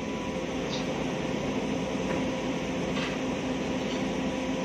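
Hydraulic excavator's diesel engine running steadily, with a steady hum and whine from the engine and hydraulics, as it loads a dump truck.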